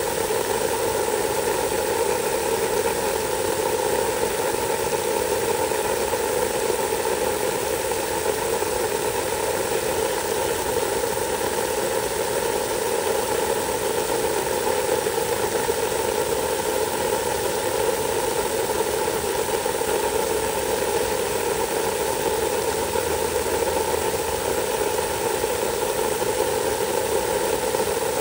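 Water spraying steadily from a hose nozzle onto wet mulch: an even hiss with a steady drone underneath that stays the same throughout.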